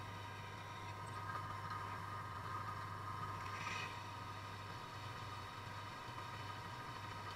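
Drill press motor running steadily while a small twist bit bores into a cast aluminium router insert plate. The cutting gets louder between about one and four seconds in, ending in a brief scrape of the bit in the metal.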